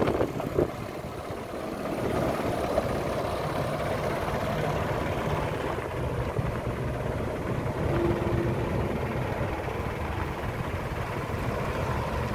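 Heavy diesel truck engine idling steadily, with wind on the microphone.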